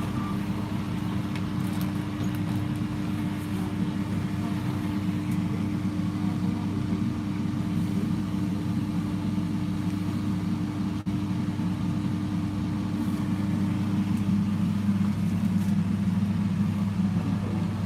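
Motor vehicle running, a steady low engine drone with road noise.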